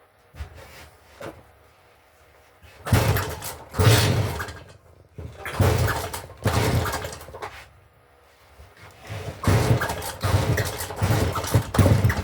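Stihl MS 310 chainsaw being pull-started: the recoil starter rope yanked about nine times in quick pulls, in two groups, with the engine cranking but never settling into running.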